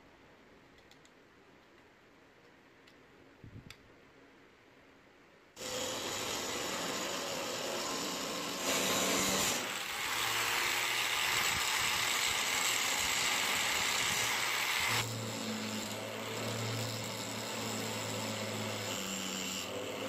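A few faint clicks of handling, then an angle grinder starts suddenly about five and a half seconds in and runs steadily. From about nine to fifteen seconds its disc grinds the protruding metal end at the butt of a wooden handle, sounding loudest and harshest, and then the grinder runs on with a steady hum.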